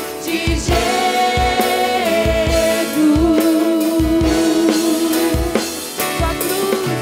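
Live worship band playing: long held sung and keyboard notes over a drum kit, with regular kick drum hits.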